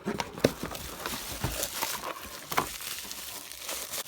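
Packaging crinkling and rustling with many sharp crackles as a toy playset box is unpacked by hand.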